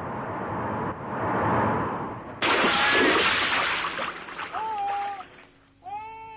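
Cartoon sound effects: a rushing, wind-like noise that jumps suddenly louder about two and a half seconds in, then gives way to short high chirps and a few rising-and-falling animal-like cries.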